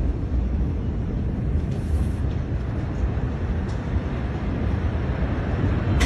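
Steady low rumble in a phone recording just after the Beirut port explosion, with no distinct bangs. A sharp click comes near the end.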